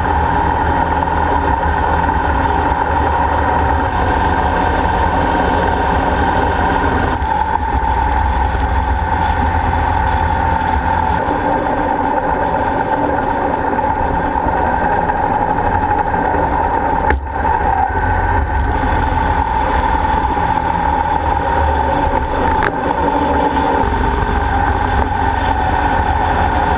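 Motorcycle engine running at riding speed with steady wind noise, heard from a camera on the moving bike. The sound drops out briefly three times where clips are joined.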